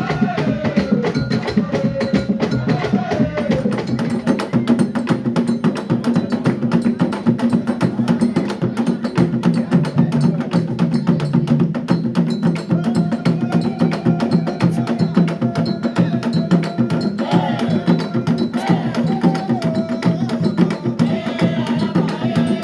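Traditional Central African dance music from a live song-and-dance ensemble: drums and other percussion play a fast, dense rhythm, with voices singing over it. The singing is clearest near the start and again in the last few seconds.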